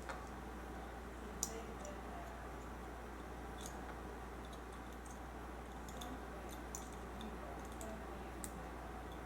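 Small, scattered clicks of a metal pick and reel parts being handled, with one sharper click about a second and a half in, over a steady low hum.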